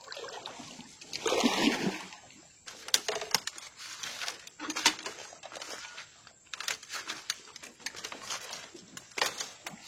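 Irregular rustling and crackling, with sharp snaps, of someone moving on foot through dense bamboo and undergrowth.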